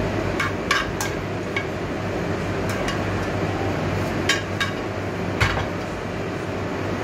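Metal tongs clinking and scraping against a metal pan and a ceramic plate as spaghetti is plated: several sharp clinks, the loudest about five and a half seconds in, over a steady background hum.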